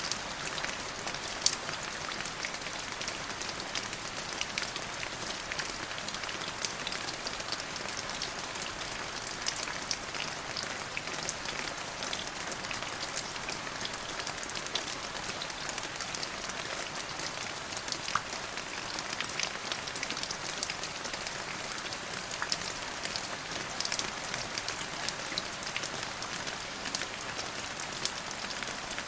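Steady rain falling on a hard surface: a dense, even hiss with many small sharp drop ticks scattered through it.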